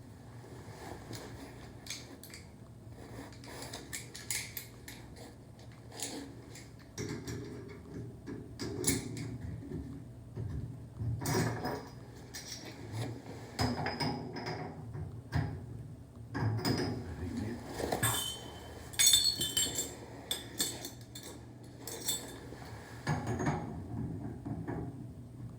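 Hand tools and metal parts clinking, tapping and scraping at irregular intervals while a shower valve body is worked on during a diverter repair, with a few brief high metallic rings.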